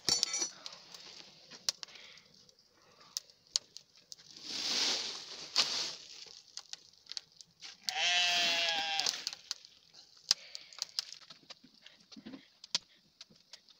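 A twig and brushwood fire crackles under a clay bread oven, with scattered sharp pops. About four and a half seconds in there is a breathy rushing sound. About eight seconds in a loud, quavering animal bleat lasts about a second.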